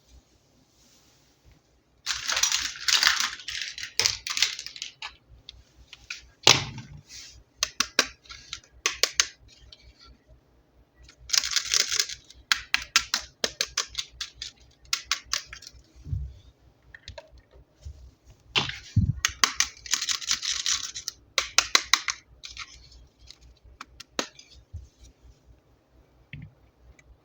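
Packaging crinkling and rustling as toys are unboxed by hand, in three long bursts, with many sharp clicks and taps of small toy parts in between.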